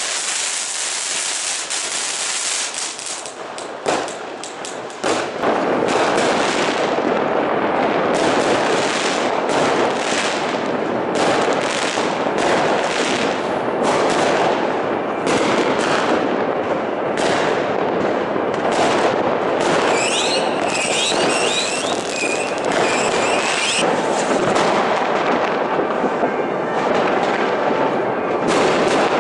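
New Year's Eve fireworks: a ground fountain hissing at first, then from about five seconds in a dense, unbroken crackle of firecrackers and bangs. A warbling high whistle sounds for a few seconds about two-thirds of the way through.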